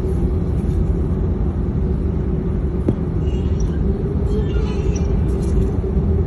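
A motor vehicle engine running steadily: an even low rumble with a constant hum.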